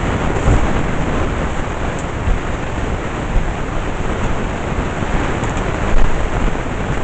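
Vacuum cleaner running steadily, with a few brief knocks over it.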